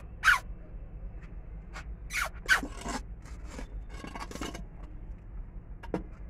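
A string of brief, irregular scraping and rustling noises, the loudest right at the start, with a sharp click near the end, over a low steady hum.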